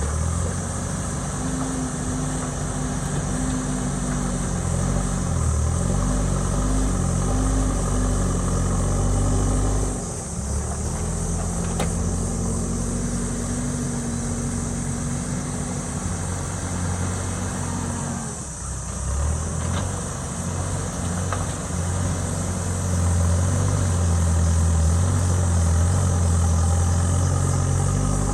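JCB backhoe loader's diesel engine running while it works, its note rising and falling with the load, dropping briefly about ten seconds in and growing louder near the end.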